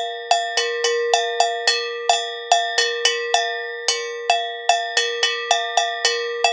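Engelhardt bells struck in a quick, uneven rhythmic pattern, about three strokes a second. Each strike is a bright metallic clang over a ringing tone that carries on between the hits.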